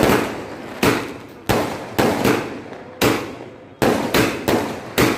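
Aerial fireworks going off in a rapid series: about nine sharp bangs, each less than a second apart, each trailing off with a short crackling echo.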